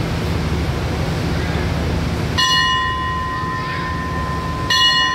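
A bell struck twice, about two seconds apart, each strike ringing on with a clear metallic tone over a steady low rumble.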